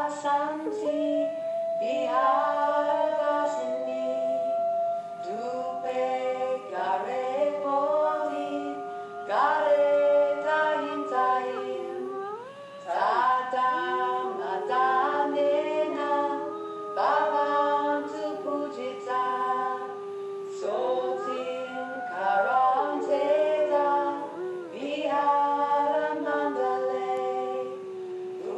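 A cappella singing: several voices holding long notes together, without instruments.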